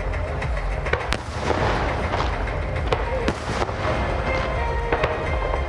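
Fireworks going off: repeated sharp bangs and crackles over a steady low rumble.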